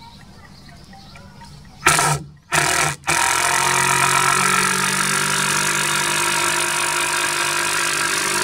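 WORX cordless drill driving a long screw into a wooden board: two short trigger bursts about two seconds in as the screw is started, then a steady run of the motor as the screw goes in.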